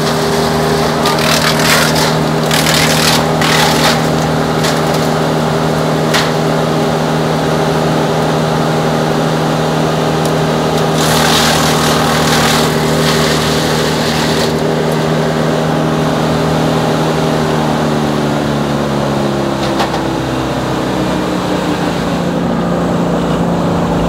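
Wood chipper's engine running steadily while pine branches are fed through, with loud crackling bursts of the branches being chipped about one to four seconds in and again around eleven to fourteen seconds in. Later the engine's pitch falls as it slows down.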